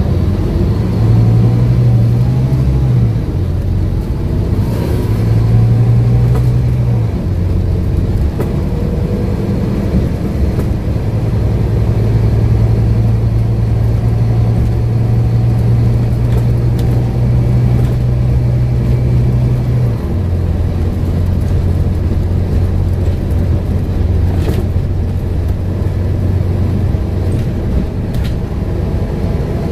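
Scania N230UD double-decker bus's diesel engine running under way, heard from inside the bus. Its low note steps up and down a few times, then drops to a lower steady pitch about twenty seconds in.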